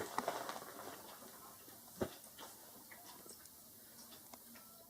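Quiet room with faint scattered light ticks and a single sharp click about two seconds in.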